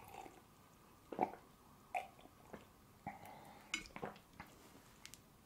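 Quiet sips and swallows of tea from a mug, the last of the tea: a handful of short gulping and mouth sounds spaced about half a second to a second apart.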